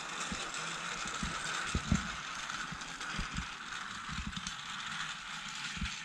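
Toy train's small motor and gearing whirring steadily as it runs along plastic track, with irregular low knocks, the loudest about two seconds in.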